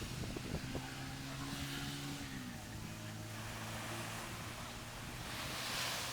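An engine running steadily at a low pitch, its note dropping slightly about two and a half seconds in. A rush of hiss swells near the end.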